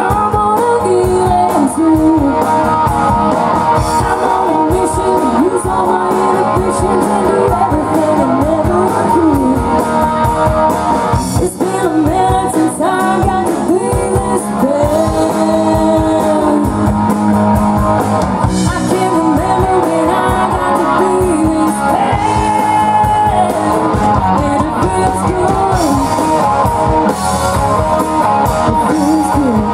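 Live rock band playing: a woman sings lead into a microphone over electric guitar and drum kit, a steady beat throughout.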